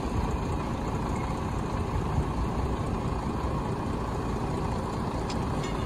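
A heavy diesel vehicle, likely a bus, idling: a steady low engine sound with no change.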